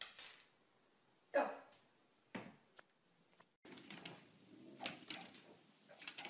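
A brief, sharp sound about a second and a half in and a click a second later. Then, from about three and a half seconds, a pug snorting and grunting over steady room noise.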